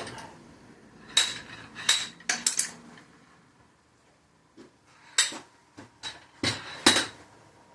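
Sharp metal-on-metal clinks and knocks with a brief ringing, in a cluster about a second in and another from about five seconds in: a homemade dowel-pin tool being worked to pull the dowel pins out of a Mazda 13B rotary engine's housings.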